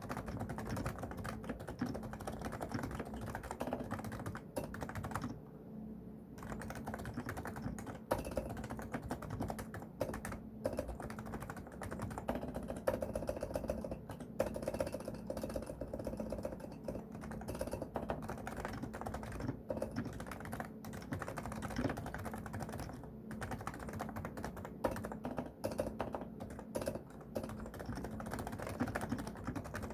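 Continuous fast typing on a Realforce R2SA silent keyboard with 45 g uniform-weight Topre electrostatic capacitive switches, giving dense, muted keystrokes. The typing pauses briefly about five seconds in, then resumes.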